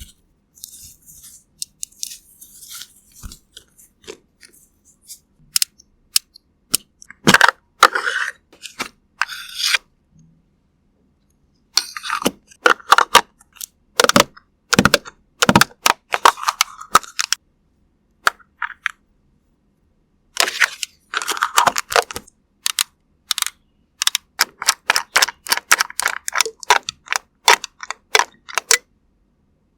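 Close-miked makeup ASMR sounds: crisp clicking, crackling and tapping in irregular clusters, with short pauses between them.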